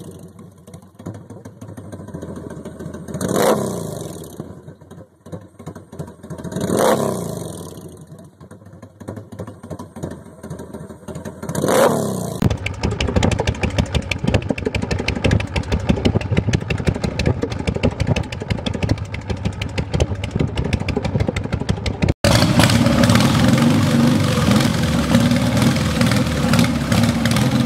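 Motorcycle engines on three bikes in turn. The first is revved in three short blips, each rising then falling. The second idles with a fast, even beat. From about twenty-two seconds in, a louder engine runs steadily while its exhaust shoots flames from unburnt fuel igniting (afterfire).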